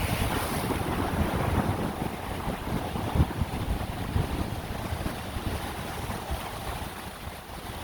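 Sea waves washing on the shore, with wind buffeting the microphone in low gusty rumbles.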